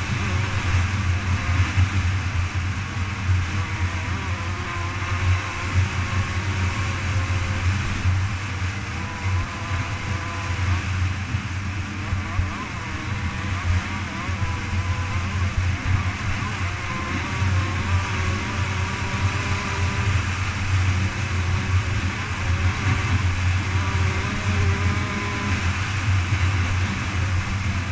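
Dirt bike engine running hard at a steady high speed, its pitch wavering only slightly, heard from an onboard camera with heavy wind rush on the microphone.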